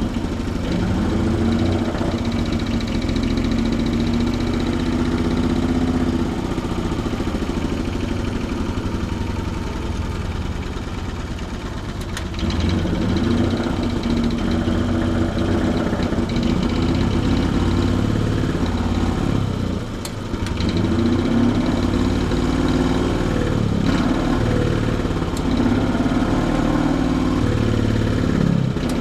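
Small gasoline pony starting engine of an antique diesel tractor running steadily. Its speed sags and picks up again about twelve seconds in and again near twenty seconds, as it works to turn over a hard-starting diesel.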